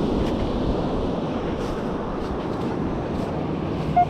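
Steady rushing noise of wind on the microphone, with surf. Right at the end a metal detector gives a short beep.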